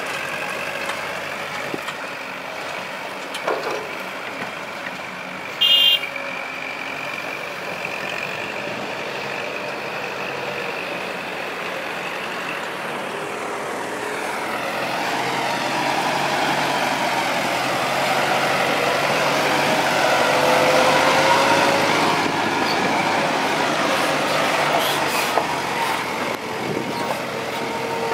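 Kubota tractor's diesel engine running steadily while grading sticky clay, then, from about halfway, a loaded dump truck's engine growing louder as it drives through the mud. A brief high-pitched tone sounds about six seconds in.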